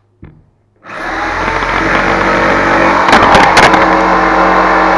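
Jigsaw starting up and cutting through marine plywood, a loud steady motor-and-blade sound that builds over about a second, with a few sharp clicks a little past halfway.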